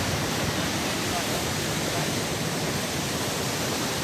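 Panimur Waterfall's falling water rushing in a steady, even roar with no breaks.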